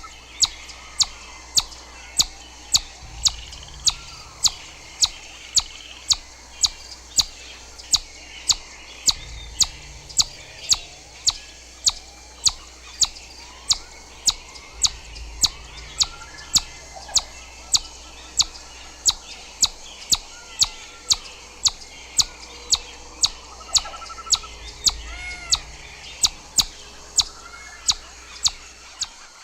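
Chipmunk giving its repeated high, sharp chip call, about two chips a second, in a long unbroken series of the kind given as an alarm. Fainter songbird calls sound behind it.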